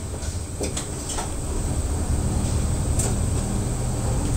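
Inside a moving route bus: the diesel engine runs under road noise, its note dipping at the start and building again. A few sharp rattles from the cabin fittings break through, near the start and about three seconds in.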